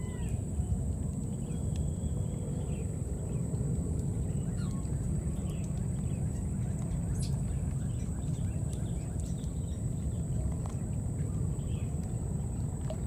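Outdoor ambience: a steady low rumble under a thin, high, steady drone. A few faint, short, high calls are scattered through it.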